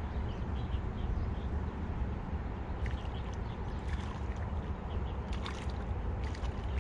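Steady low wind rumble on the microphone, with faint water splashing and sloshing from a hooked fish struggling at the surface, and a few brief crackles.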